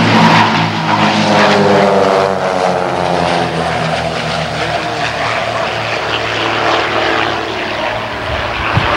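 Piston engines and propellers of three aerobatic biplanes flying past in formation, a steady drone whose pitch drops as they go by.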